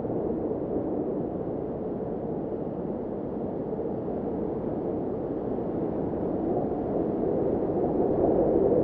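Steady low rushing of blizzard wind, swelling louder over the last couple of seconds.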